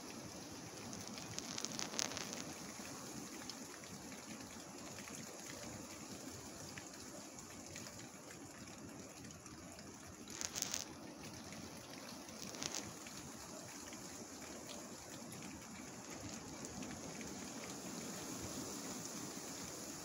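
Wind blowing through tree foliage: a steady rushing hiss of leaves, with a few brief louder rushes about two seconds in and again near the middle.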